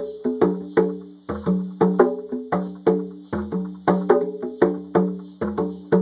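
A pair of conga drums played with the bare hands in a driving rhythm: ringing open tones mixed with quick flurries of lighter strokes. Behind the drums is a steady high drone of cicadas.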